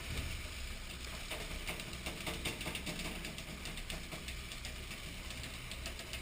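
Fishing boat's engine running steadily, with irregular light clicks and knocks over it.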